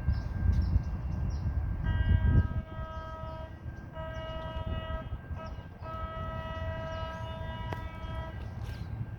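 San Diego Trolley Siemens S700 light rail vehicle sounding its horn three times at a grade crossing: a steady multi-note chord, with the third blast the longest. A low rumble from the train is heard in the first couple of seconds.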